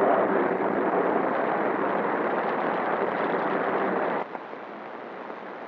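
CB radio static through a base station's speaker, a steady hiss that drops to a quieter hiss about four seconds in.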